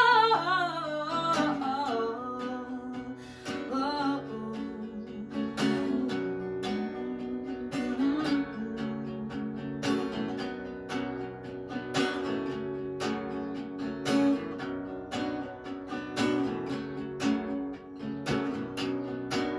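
Acoustic guitar strummed in a steady rhythm, chords ringing between strokes. A held, wavering sung note dies away in the first second or two.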